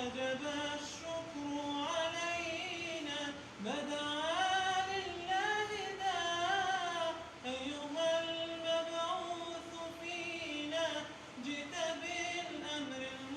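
Unaccompanied nasheed singing: a single high voice drawing out long, ornamented notes, with a rising swoop about three and a half seconds in.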